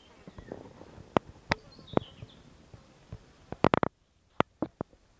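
Sharp clicks and taps from handling the camera, scattered about one every half second, with a quick cluster of them about three and a half seconds in. Faint outdoor background underneath.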